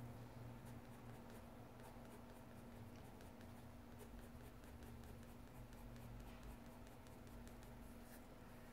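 Faint scratching of a coloured pencil on sketchbook paper in many short shading strokes.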